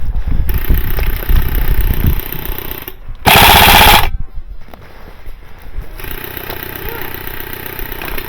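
Airsoft light machine gun firing a loud full-auto burst about three seconds in, lasting under a second, with rapid rattling of full-auto airsoft fire before and after it.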